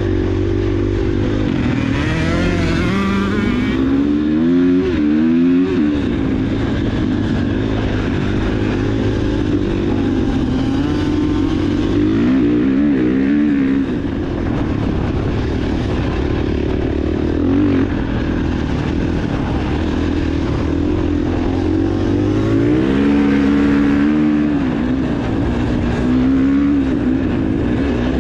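Dirt bike engine under way, its pitch climbing and dropping again and again as the throttle is opened and closed.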